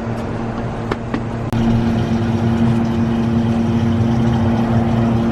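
Car engine running with a steady low hum. A couple of light clicks come about a second in, and the hum grows a little louder shortly after.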